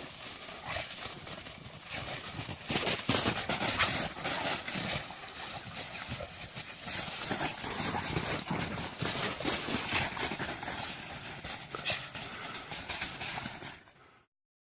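Irregular crunching footfalls in snow with scattered thumps, cutting off abruptly near the end.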